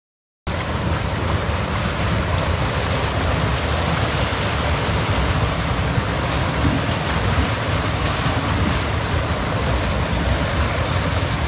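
Steady rush of river water pouring over a small concrete weir, loud and close, cutting in about half a second in.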